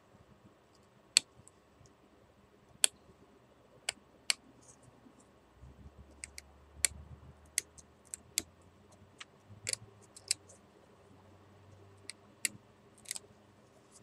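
Knife whittling a hard wooden chopstick: sharp, irregular clicks as the blade snaps off shavings, with a faint low rumble of handling around the middle.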